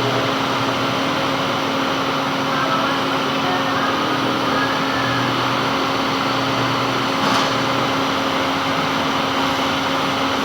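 Metal lathe running steadily, a constant machine hum with a steady tone, and one brief tick about seven seconds in.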